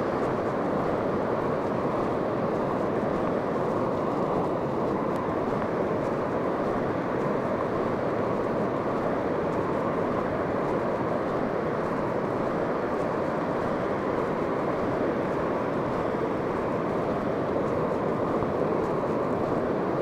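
Steady rushing noise of wind and ocean surf on the shore, even throughout with no single event standing out.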